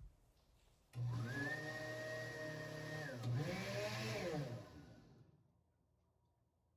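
Countertop blender with a glass jar blending a pale liquid. The motor starts suddenly about a second in and quickly spins up to a steady whine, dips briefly, runs up again for another second or so, then winds down a little past the middle.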